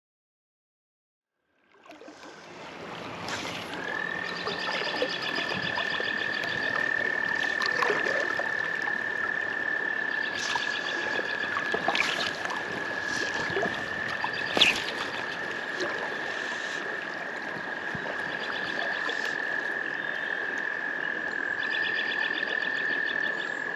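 Frogs calling at dusk. One holds a long, unbroken, high steady trill, while others give repeated short bursts of rapid pulsing calls over a soft background of running water. There are a few sharp clicks, and the first couple of seconds are silent.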